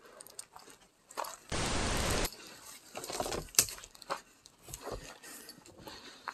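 Footsteps crunching and rustling through dry grass and brush, with scattered crackles. A loud burst of noise lasts under a second about a second and a half in, and there is a sharp click a little after the middle.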